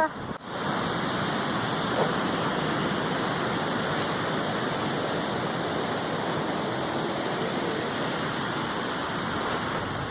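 Strong wind, a steady rushing noise with no gusts standing out.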